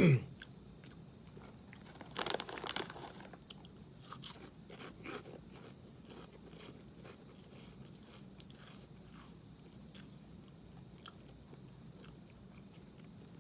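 A person crunching and chewing a puffed corn cheese snack: a loud crunch about two seconds in, then softer crunching chews that die away after a few seconds.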